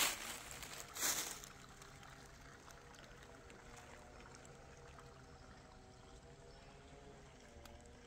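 Footsteps crunching in dry leaf litter, twice in the first second and a half, then the faint steady trickle and gurgle of a small woodland stream.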